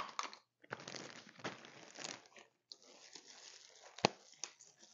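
Clear plastic zip-top bags crinkling and rustling as whole spices (cinnamon sticks, allspice berries) are handled and dropped into them, with a few sharp taps, the loudest about four seconds in.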